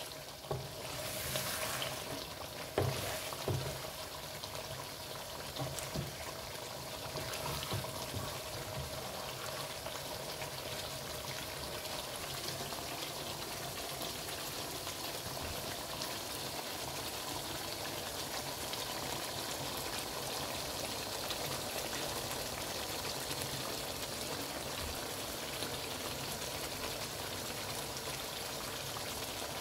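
Chicken karahi gravy bubbling and sizzling in a pan over a high gas flame, a steady fine crackle. A few knocks and scrapes of a wooden spoon stirring it come in the first few seconds.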